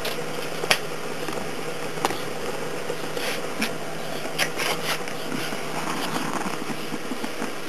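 Steady hiss of an oxyhydrogen (HHO) torch flame fed by an electrolysis cell, over a faint steady hum, with a few sharp clicks scattered through it.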